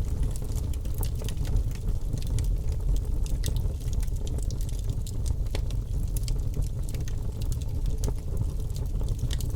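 Birch logs burning in a fireplace: a steady low rumble of flame under frequent sharp crackles and pops.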